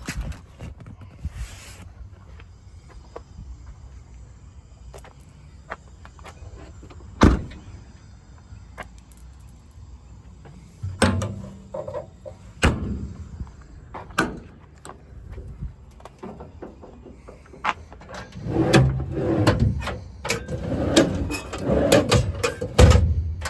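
Metal compartment doors and latches on a truck's service body being worked. Scattered clicks and knocks, a sharp knock about seven seconds in, and a run of clattering near the end.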